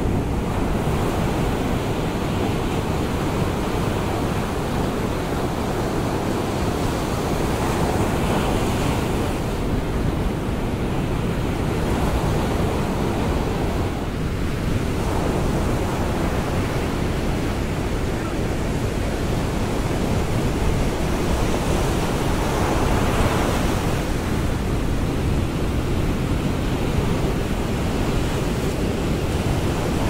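Rough ocean surf breaking on a sand beach: a continuous rushing wash, swelling louder as waves break about eight seconds in and again a little past twenty seconds.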